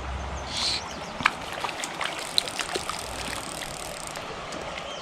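Small creek running over rocks, a steady trickle with scattered short clicks and light splashes on top.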